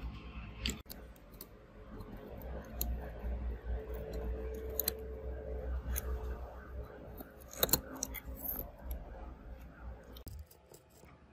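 Light clicks and scrapes of a smartphone's circuit board and flex cables being handled and pressed into place in the phone frame, with a few sharper clicks, the loudest about two-thirds of the way through. A steady low hum lies underneath and stops shortly before the end.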